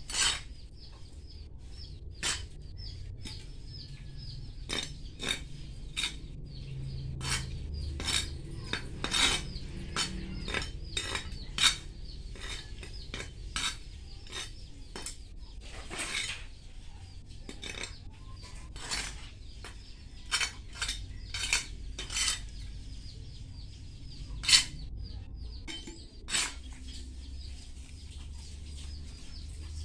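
Hands and potting soil scraping and knocking against a terracotta flower pot and a plastic pot during repotting of an elephant ear plant: irregular sharp clacks and scrapes, about one a second.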